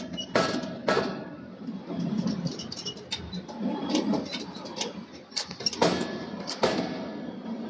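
Sharp metallic knocks and clanks: two loud strikes near the start and two more about six seconds in, each with a short ring, among lighter clanks over a low rumble.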